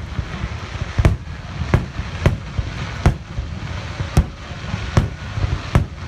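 Aerial firework shells bursting: about eight sharp bangs at irregular intervals, roughly one a second, over a continuous low rumble.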